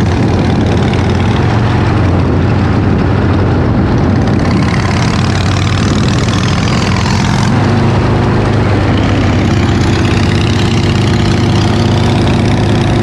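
Motor vehicle engine running steadily on the move, with a dense rush of road and wind noise over it; the sound cuts in suddenly at the start.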